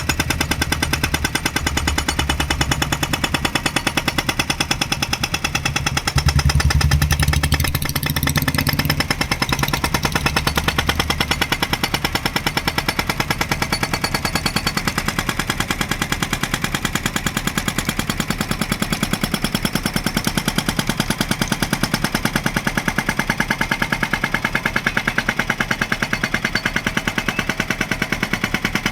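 Hydraulic breaker on a JCB 3DX backhoe loader hammering in a rapid, unbroken rattle of blows, over the machine's diesel engine, which runs louder and heavier for about the first twelve seconds.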